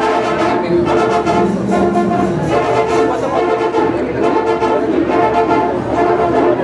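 Brass band music playing, with horns and trombones carrying a steady melody.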